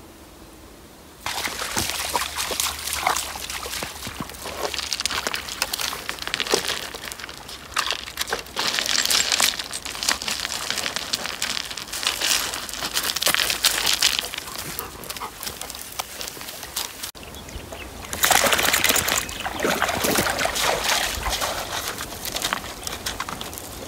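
Loose lakeshore pebbles crunching and shifting underfoot as a dog walks along the water's edge, with shallow water sloshing. It starts abruptly about a second in.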